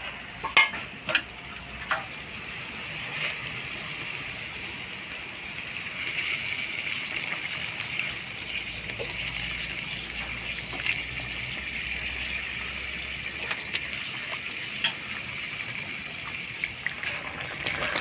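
Thin fish curry boiling in a kadai over a wood fire: a steady bubbling hiss, with a few clinks and knocks in the first two seconds as the fish go in, and an odd click later.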